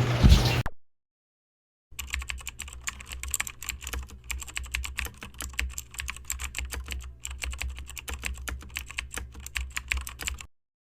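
Rapid, irregular clicking, many clicks a second, over a low steady hum; it starts about two seconds in and stops suddenly near the end.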